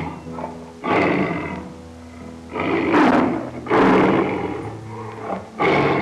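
Tiger roaring again and again, a string of rough roars each about a second long, over soft background music.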